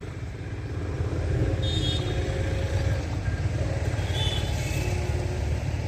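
A steady low rumble of a motor vehicle running.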